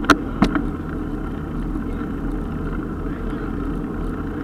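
Steady rumble of wind and road noise on a mountain-bike-mounted action camera riding over asphalt, with two sharp clicks near the start.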